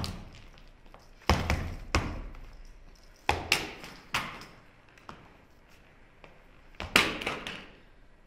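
A series of sharp knocks, about eight in irregular clusters, each ringing out briefly with a short echo, the loudest at the very start and near the end.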